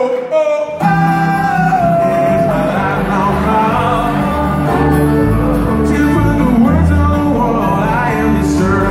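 A live band plays with an acoustic guitar, steady bass notes and singing. The music comes back in about a second in, after a brief break.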